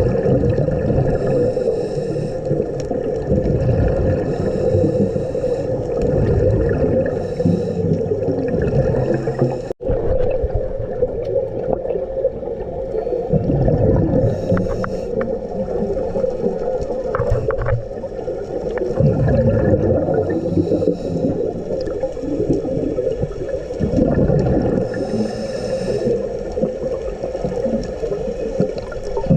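Underwater sound of scuba breathing through a regulator: a short hiss on each inhale, then a low bubbling rumble as the exhaled air escapes, repeating every few seconds over a steady underwater hum. The sound drops out for an instant just under ten seconds in.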